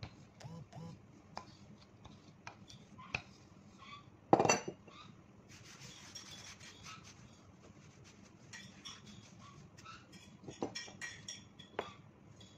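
Dough being rolled out and smoothed by hand on a floured counter: scattered light knocks and clicks of the rolling pin, with one loud knock about four seconds in and a stretch of soft rubbing of hands over the dough.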